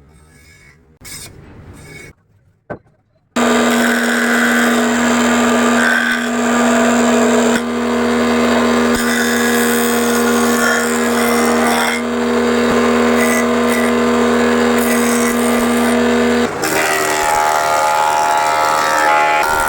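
Power tool working wood: after a quiet few seconds it starts abruptly and runs loud and steady with a constant hum, the sound changing at about three-quarters of the way through.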